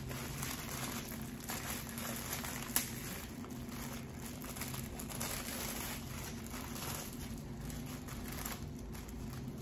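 Crinkling and tearing of the thin plastic wrapper on a takeout cutlery pack (napkin-rolled plastic fork and knife) as it is worked open by hand, with one sharper click about three seconds in.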